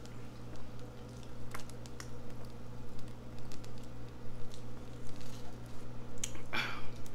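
Slurping and gulping of fizzy soda drunk straight from a tipped paper plate, with small wet mouth clicks, over a steady low hum. A louder, noisier slurp or breath comes about six and a half seconds in.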